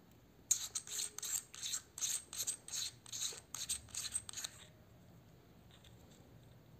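BOYA BY-M1 lavalier microphone's threaded battery compartment being twisted open by hand: about a dozen short scratchy rasps, roughly three a second, stopping after about four seconds.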